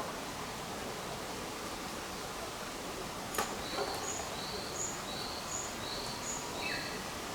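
A songbird calling a quick run of about ten short high notes that alternate between two pitches, roughly three a second, ending on a lower falling note, over steady outdoor background noise. A single sharp click comes just before the song.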